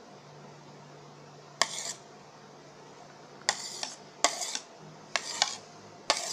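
Tableware clinking and scraping: about five sharp clinks, each followed by a short scrape, as grated raw mango is scraped off a plate into a glass bowl.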